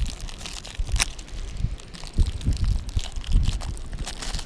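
Toy packaging being handled and opened, crinkling and rustling, with a sharp click about a second in and a few low thumps.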